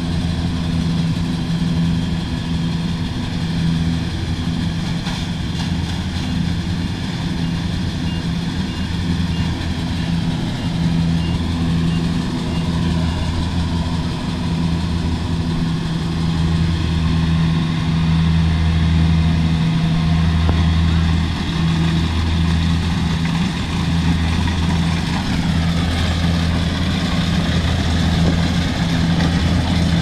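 Kubota rice combine harvester running steadily as it cuts and threshes standing rice, its diesel engine and threshing machinery giving a continuous low drone that swells and fades about once a second. It grows somewhat louder as the machine approaches.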